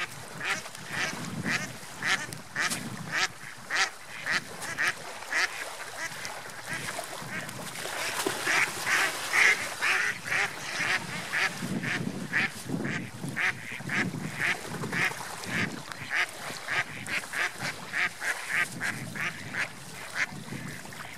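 A flock of mallard ducks quacking in a rapid run of short calls, several a second. The calls are densest and loudest about halfway through, over a low rumble of wind and lapping water.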